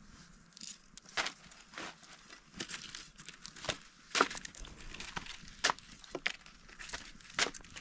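Thin, dry flatbread crackling and rustling as it is torn and handled by hand, in an irregular run of short crackles.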